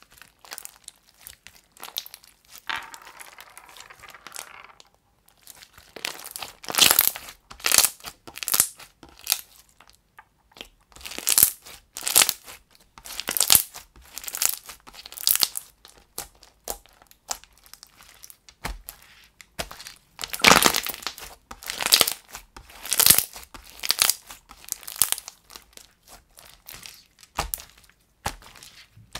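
Thick white fluffy slime with small clay bits being stretched, pressed and spread by hand. It gives a run of short, sharp crackles and tearing sounds, faint at first, then loud from about six seconds in, roughly one a second.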